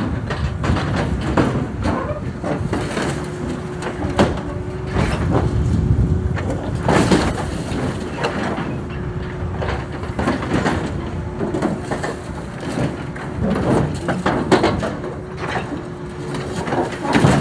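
Excavator tearing apart a rusty steel trailer: the diesel engine runs under load while steel scrapes, creaks and clanks repeatedly as pieces are ripped off.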